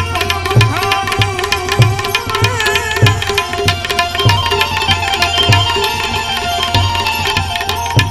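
Instrumental break in Gujarati devotional santvani music. A hand drum keeps a steady beat of low strokes about every half second, under a sliding melody line over a held drone, with quick metallic clicks throughout.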